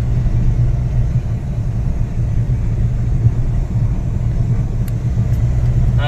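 Steady low rumble of a moving car heard from inside the cabin: engine and road noise while driving.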